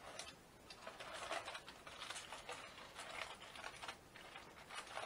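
Aluminium foil crinkling in faint, irregular crackles as hands fold and press it closed into a tight packet.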